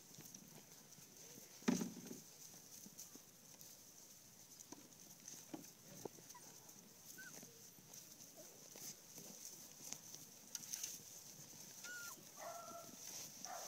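Young puppies playing on grass: faint scuffling and rustling, one sharp knock about two seconds in, and a few short high squeaks and whines near the end.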